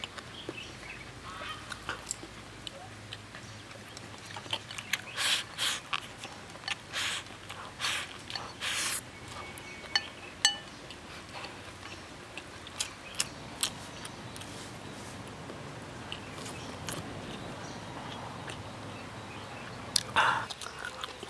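Close-up chewing and mouth sounds of someone eating a big mouthful of fatty char siu pork belly, with a run of wet smacks in the middle and a few sharp clicks later.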